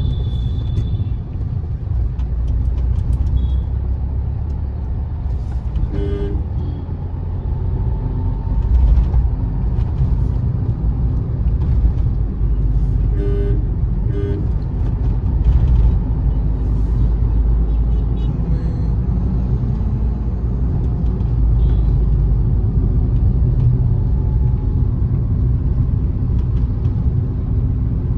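Steady low rumble of a car's engine and tyres heard from inside the cabin while driving in town traffic. Short horn toots sound about six seconds in and twice more around thirteen to fourteen seconds in.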